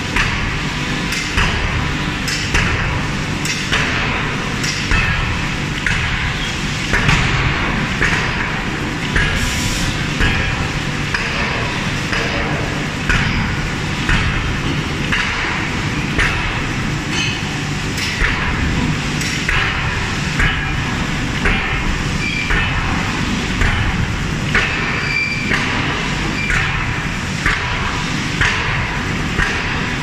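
Heavy forging hammer striking hot steel on its anvil in an even series of sharp blows, a little more than one a second, over a steady loud din of shop machinery.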